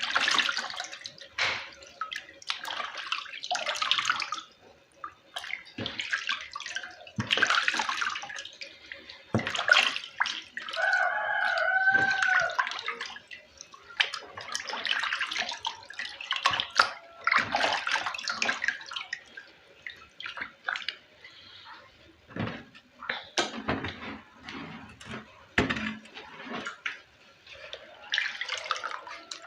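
Raw offal being washed by hand in water: repeated splashing and sloshing in irregular bursts. A brief pitched squeak near the middle.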